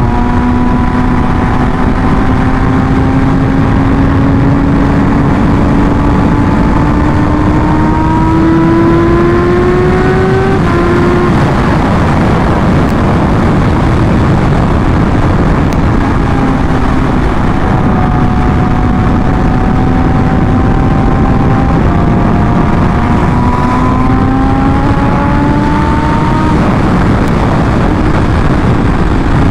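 Kawasaki Ninja H2's supercharged inline-four heard from the rider's position at highway speed, under a heavy rush of wind and road noise. The engine pitch climbs steadily for about ten seconds as the bike pulls, drops back about eleven seconds in, holds level, then climbs again near the end.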